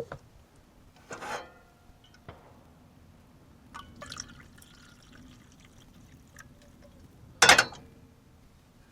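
A few light clinks and knocks of small objects being handled, one with a brief ringing tone, then a much louder sharp knock about seven and a half seconds in.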